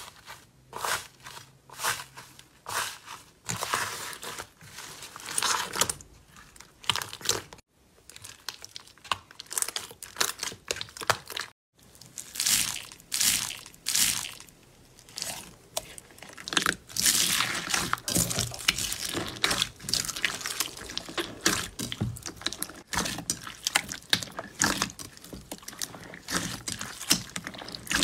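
Hands squeezing and pressing slime mixed with foam beads, giving dense crunchy crackling and popping. It breaks off twice in short silences.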